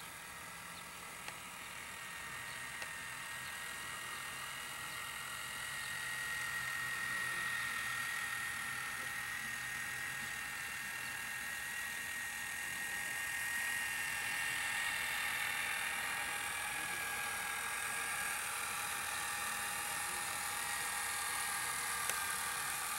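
Steady whirring whine from a small electric motor, growing a little louder over the first several seconds, with two faint ticks near the start.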